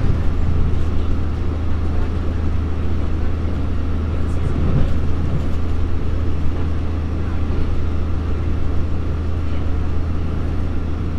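Cabin running noise of a UP Express Nippon Sharyo diesel multiple unit on the move: a steady low drone from its diesel engines under the rush of wheels on the rails.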